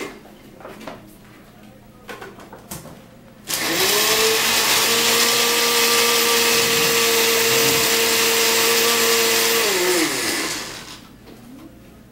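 Countertop blender switched on about three and a half seconds in, running steadily for about six seconds as it blends a yogurt, jam, condensed-milk, cookie and ice smoothie. It is then switched off, its pitch falling as the motor winds down. A few light knocks come before it starts.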